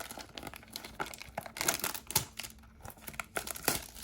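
Crinkling and tearing of a trading-card blaster box's plastic wrap and cardboard being worked open by hand, a tight fit, in irregular bursts of crackling rustle.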